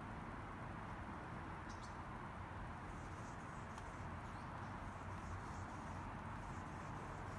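Sand-textured slime being handled and squished by hand, giving faint crackly clicks and pops, most of them in the middle, over a steady background hiss and low hum.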